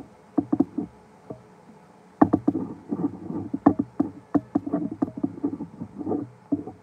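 Plastic eyepiece unit of Nikon Aculon T01 binoculars being twisted off its thread by hand: irregular clicking and scraping. A short cluster of clicks comes early, then a denser run of clicks and scrapes from about two seconds in, as the grip works the unit round.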